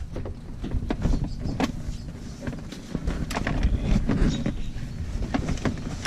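Leather rear seat cushion being positioned and pressed into place by hand, with rustling, creaking and scattered small knocks and clicks as the seat belts are fed through it.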